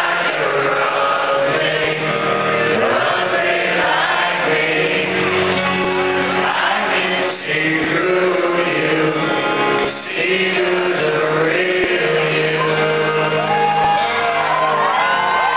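Live music: a man singing into a microphone over an acoustic guitar, amplified through a concert sound system.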